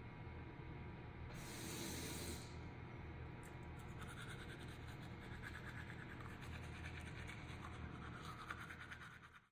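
Faint scratching over a steady low hum, with a brief hiss about a second and a half in.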